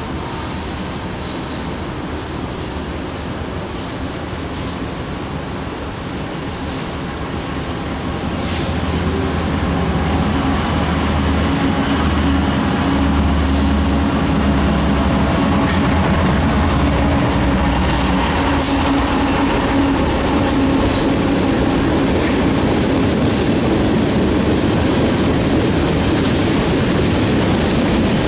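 A CN diesel-electric locomotive runs past with its engine humming, followed by loaded tank cars rolling by with a steady rumble and wheel clatter. The sound grows louder about eight to ten seconds in as the locomotive comes close. Brief high squeals come from the wheels on the curved track.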